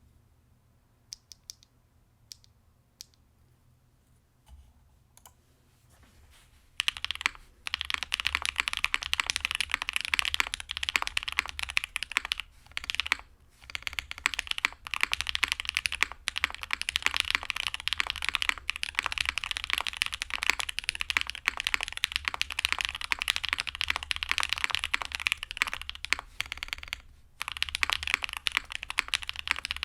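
Typing on an ai03 Vega mechanical keyboard with Black Cherry Pie linear switches on a POM plate: a few single keypresses in the first few seconds, then fast continuous typing from about seven seconds in, broken by a few brief pauses.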